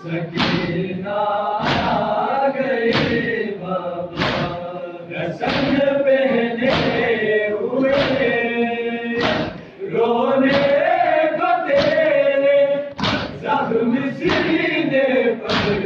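Large group of men chanting a Shia Muharram noha in unison, with the crowd beating their chests together in matam, one loud stroke about every 1.3 seconds keeping the rhythm.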